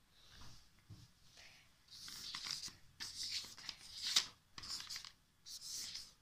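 Marker scribbling back and forth on notebook paper: a run of scratchy strokes, soft at first and louder and quicker from about two seconds in.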